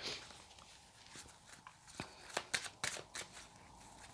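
A deck of tarot cards being shuffled and handled by hand: quiet, scattered papery flicks and taps, with a few louder ones about two to three seconds in.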